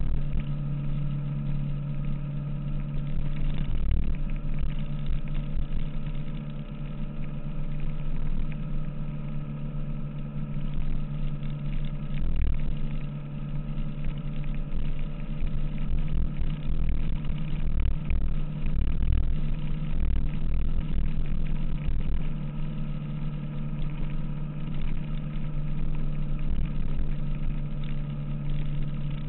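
A 2006 Kawasaki ZX-6R's inline-four engine running at steady revs on a ride, with low thumps now and then.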